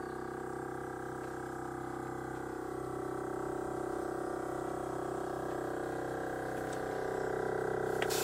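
Portable air compressor running steadily to air up a tire through a hose. Its hum gets slowly louder and drops a little in pitch near the end.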